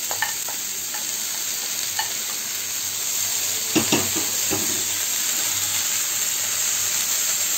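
Vegetables (broccoli, baby corn and sweet corn) sizzling in oil in a frying pan as they are stirred with a wooden spatula. A few knocks of the spatula against the pan come about four seconds in.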